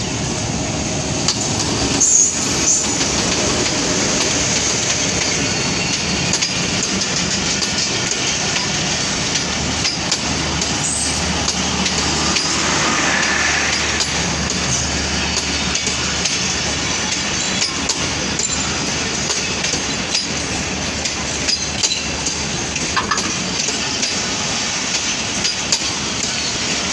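Pakistan Railways diesel-hauled passenger train running past on the track: the locomotive, then its coaches, with a steady rumble of wheels and a running clickety-clack over the rail joints, louder knocks about two seconds in.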